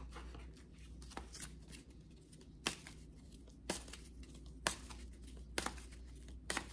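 Tarot cards being handled and shuffled by hand: short, sharp card clicks about once a second, starting a little before the middle.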